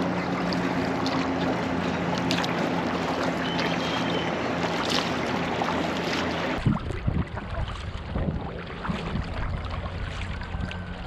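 Water and wind sounds from a sea kayak under way. For the first six seconds or so a steady hum with a noisy hiss runs under it. Then the sound changes abruptly to quieter water with short splashes and drips from paddle strokes.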